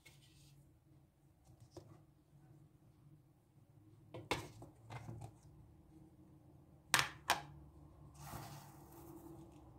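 A few light knocks and clatters as a plastic tub of dried split peas is handled and set down on a stainless-steel tray, the loudest a pair of knocks about seven seconds in, followed by a brief rustle.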